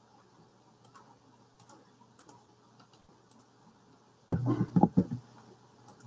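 Faint clicks and taps of a computer keyboard and mouse. About four seconds in comes a short, louder burst of knocks and rustling.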